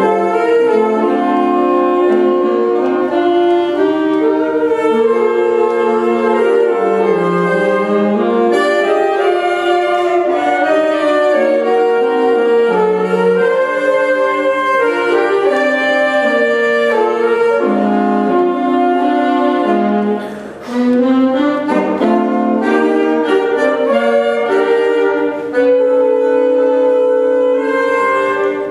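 A saxophone quartet playing in close harmony, four lines of held notes moving together, with a brief break about two-thirds of the way through.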